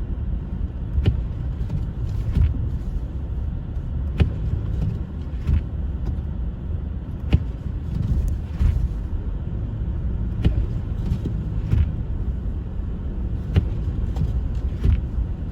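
A car driving on a snow-covered road: a steady low rumble of engine and tyres, with scattered short clicks and knocks.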